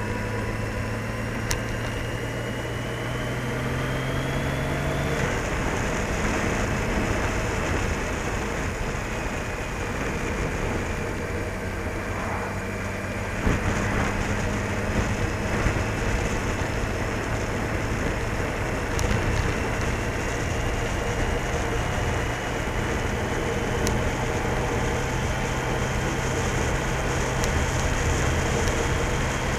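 Motorcycle engine running while riding along the road, mixed with wind and road noise. Its pitch rises slowly at first, then shifts about five seconds in and again about thirteen seconds in.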